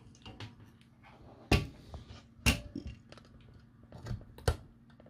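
Handling noise from a circuit board in a sprung PCB holder being picked up and set down on a workbench mat: a few sharp knocks and small clatters, the loudest about a second and a half, two and a half and four and a half seconds in.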